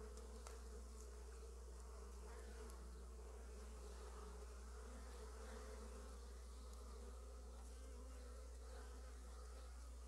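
Honey bees buzzing faintly and steadily as foragers fly in and out of a hive entrance, over a constant low hum.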